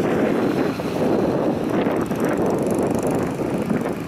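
Gusty wind buffeting the microphone, with the distant rumble of a Boeing 717's rear-mounted jet engines underneath.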